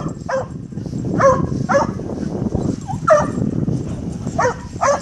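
Dogs giving short, high-pitched excited yips and whines, about six calls, over a steady low rumble; the excitement of dogs greeting their owner coming home.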